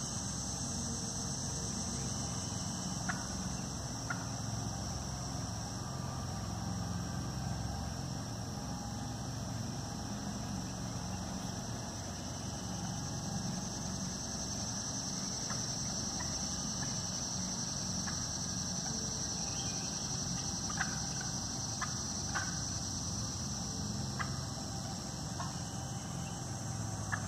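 Steady high insect chorus over a low steady rumble, with scattered short, faint clucks from turkeys roosting in the trees, more of them in the second half.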